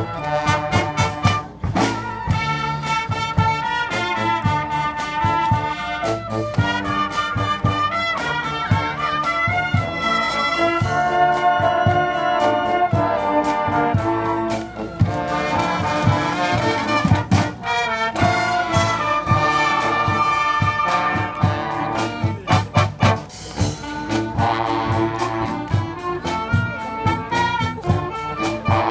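Marching band playing live: trumpets, trombones, saxophones and clarinets over a drum kit and marching drums, with a steady beat.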